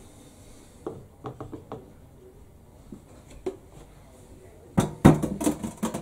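Things being handled in a stainless steel sink: scattered light knocks and clicks, then a burst of louder clattering about five seconds in.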